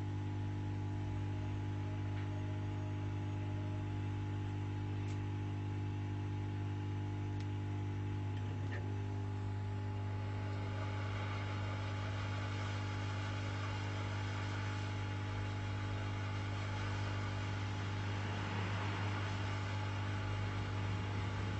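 Hot air rework station blowing on a phone circuit board to reflow the solder of a new charging port: a steady electrical hum with a rushing air hiss that grows louder about halfway through.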